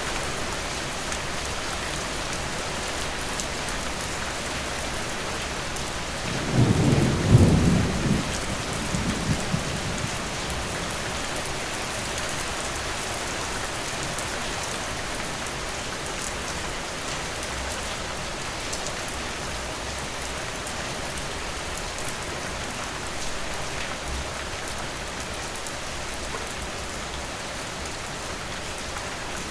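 Heavy rain falling steadily, with a roll of thunder about six seconds in that rumbles for a few seconds and fades.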